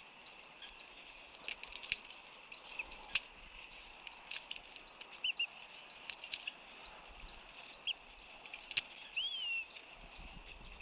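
Wetland birds calling: scattered short chirps and a few sharp clicks over a steady high-pitched background, with one longer call that rises and then falls near the end.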